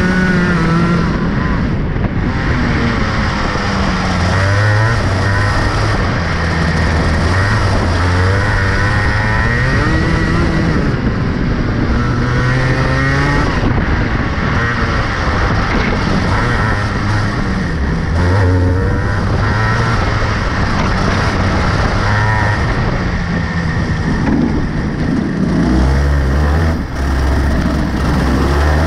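Rotax Max 125cc two-stroke kart engine heard onboard, its pitch rising under acceleration and falling off as the driver lifts for corners, again and again through the lap.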